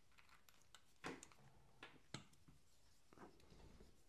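Very quiet handling sounds: four or so faint, sharp clicks and taps, then a soft rustle near the end, as a folding knife and small tools are handled on a work mat.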